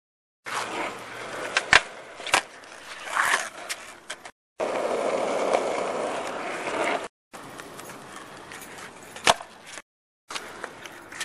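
Skateboard on a hard court surface: urethane wheels rolling, with sharp clacks as the board is popped into tre flips and landed. The sound comes in several short pieces that cut off suddenly, with the loudest clacks about two seconds in and shortly before the end.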